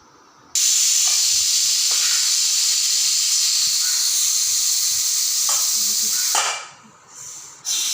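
Pressure cooker whistling: a sudden loud jet of hissing steam that holds steady for about six seconds, then dies away with a couple of short puffs.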